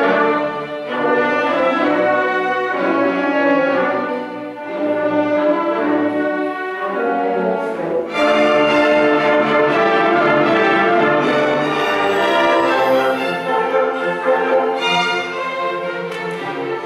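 Conservatory student orchestra playing live: bowed strings (violins, cellos, double basses) holding sustained lines, with a wind or brass voice among them. The music swells into a fuller, brighter passage about eight seconds in.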